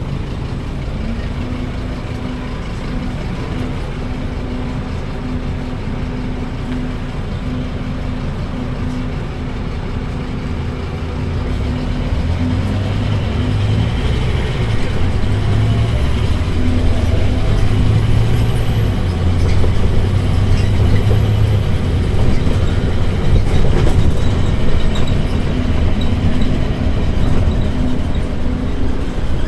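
Scania K310UD bus's DC9 diesel engine and ZF automatic gearbox running in drive. It holds a steady hum for the first ten seconds or so, then grows louder and deeper from about twelve seconds in and stays up.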